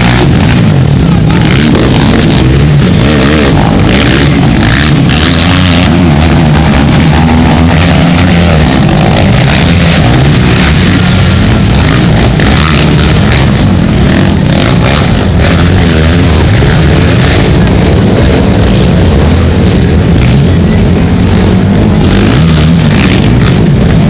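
Several racing ATV engines running hard and revving together, their pitches rising and falling as riders work the throttle. The sound is very loud and unbroken.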